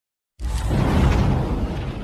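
A short intro whoosh sound effect with a deep rumble, starting suddenly about half a second in and then fading away.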